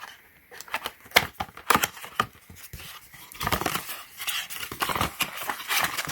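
Handling noise of a magnetic charging cable and its packaging: many sharp small clicks mixed with short rustling scrapes.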